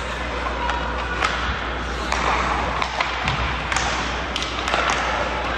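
Ice hockey play: irregular sharp clacks of sticks on the puck and thuds against the boards, over the hum of the rink and faint voices calling.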